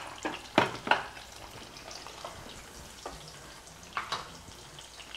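Pancakes sizzling faintly in a frying pan, with several sharp clicks of a fork against a plate, a quick cluster in the first second and more about three and four seconds in.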